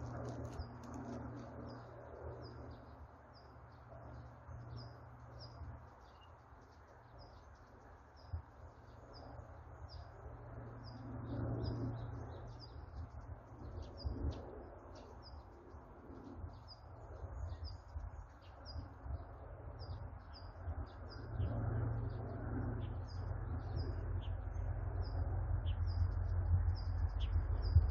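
A bird calling steadily with short, high, repeated chirps, about one or two a second, over a faint low rumble. In the last few seconds the low rumble grows louder as a two-car Mugunghwa-ho train approaches along the line.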